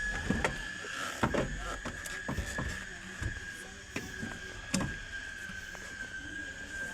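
Irregular clicks and knocks of metal parts being handled as a car's unbolted steering column, which is sticking slightly, is worked loose and lowered. A faint, steady high whine runs underneath.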